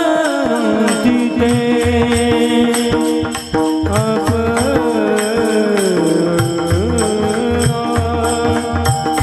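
Devotional Marathi bhajan singing: a male voice holds long, ornamented sung notes that glide between pitches, over a steady drum beat and regular strokes of small hand cymbals.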